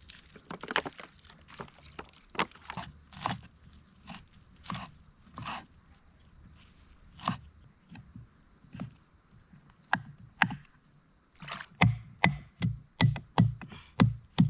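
Knife chopping roots: scattered single cuts, then from about eleven seconds in a quicker run of louder strokes, roughly three a second.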